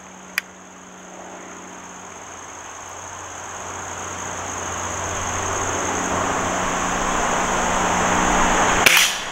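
A single shot from a Stoeger S3000-C break-barrel .177 pellet rifle near the end, a sharp crack that is the loudest sound. Under it, a steady high insect drone and a hiss that slowly grows louder.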